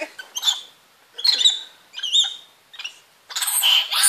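A group of excitable small monkeys calling: short, high squeaks and chirps that rise and fall in pitch, a few at a time at first, then many overlapping squeals from about three seconds in.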